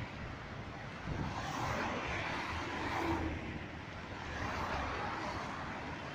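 Road traffic on a busy city highway: a steady rush of cars and tyres that swells twice as vehicles pass close by.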